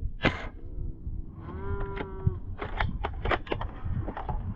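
A sharp airsoft rifle shot, then about a second and a half in a distant player's long, drawn-out shout, an opponent calling out as he is hit. Several sharp clicks follow.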